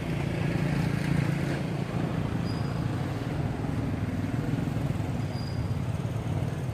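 A vehicle engine running steadily at idle, a low, even hum.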